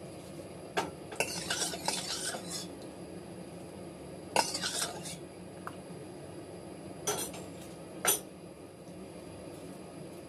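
A utensil clinking and scraping against a stainless steel pot as ube ice candy mixture is scooped out, in a few short bouts: sharp clinks about a second in, at about four seconds, and near seven and eight seconds.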